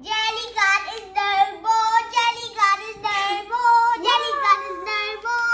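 A child singing a tune in long, held notes that slide up and down, phrase after phrase.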